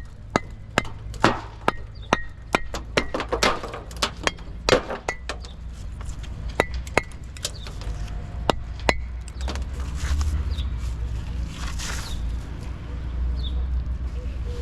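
Repeated sharp knocks with a slight ringing, about two to three a second at first, thinning out after about five seconds, over a steady low rumble that grows a little louder near the end.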